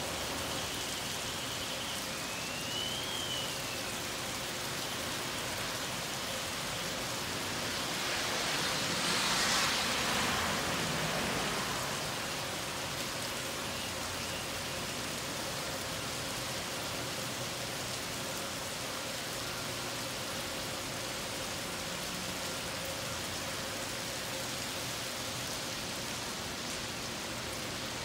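Heavy rain falling steadily on wet pavement, an even hiss. About eight seconds in, the hiss swells louder for a few seconds and then settles back.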